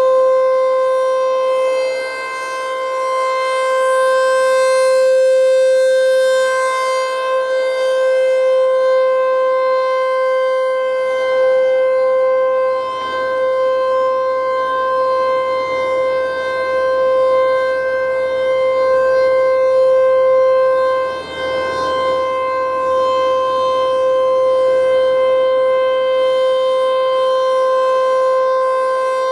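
American Signal T-128 rotating outdoor warning siren sounding a steady alert tone. The pitch holds level while the loudness slowly swells and dips as the siren turns.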